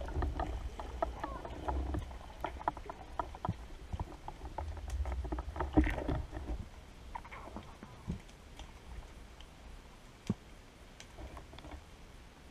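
Underwater sound through a camera's waterproof housing as a spearfisher swims: a low rumble of moving water with many scattered clicks and knocks over the first six seconds or so, then quieter, with only an occasional click near the end.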